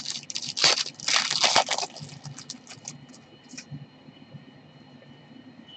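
Trading cards being handled and slid against one another, a quick flurry of rustling clicks in the first two seconds, then a few lighter scattered clicks.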